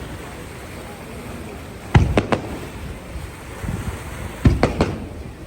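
Fireworks shells bursting overhead: a quick run of about three sharp bangs around two seconds in, then another run of about three around four and a half seconds in, each with a short echoing tail.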